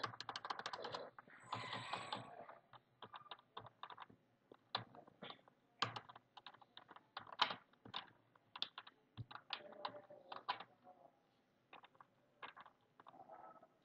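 Computer keyboard being typed on: light, irregular keystrokes in short runs with pauses between them.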